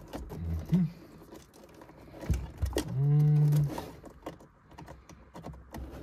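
A man's low wordless vocal sounds: a short grunt, then a louder held groan about three seconds in that lasts under a second. Light clicks of plastic trim and wiring connectors being handled run throughout.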